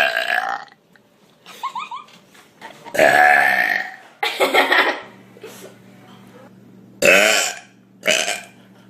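Several loud burps in quick succession, one after another with short gaps, the longest lasting about a second about three seconds in.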